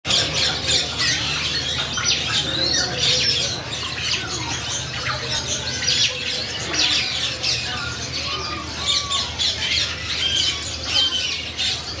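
Many caged birds chirping and squawking at once in a dense, overlapping chatter, with a steady low hum underneath.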